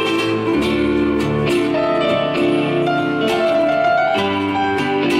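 Live band playing an instrumental passage: guitar picked over held keyboard chords, the notes changing every second or so.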